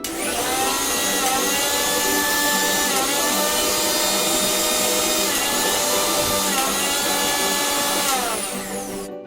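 Mixer grinder's 500-watt motor running at high speed. Its whine dips briefly in pitch a few times as the load in the jar shifts, then sags lower near the end before cutting off.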